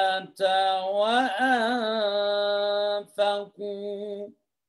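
A man reciting the Quran in melodic tajweed style, holding long chanted notes with a wavering turn of pitch about a second in. He breaks briefly twice near the end and stops just past four seconds.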